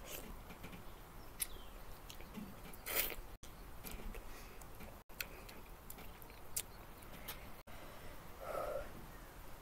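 Faint mouth sounds of a person eating lemon pieces: chewing and sucking with small wet clicks, and one short louder burst about three seconds in. A brief hum near the end.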